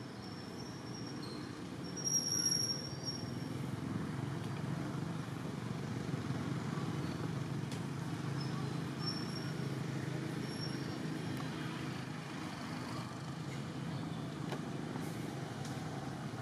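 Steady low outdoor rumble, like distant traffic, with a few short high chirps, the clearest about two seconds in.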